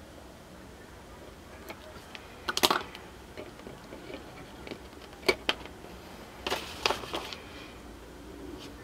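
Scattered sharp clicks and knocks of small electronics hardware handled on a wooden table as the multimeter test probes are let go and a bare circuit board is lifted away. The loudest cluster comes a little before three seconds in, with two quick knocks around five seconds and another cluster around seven seconds.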